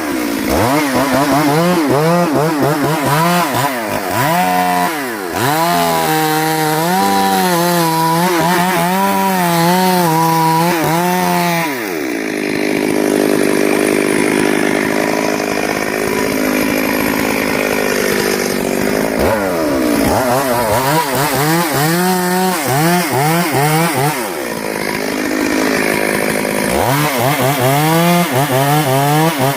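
Chainsaw cutting wood, its engine revving up and down over and over, held at a steadier pitch for several seconds in the middle.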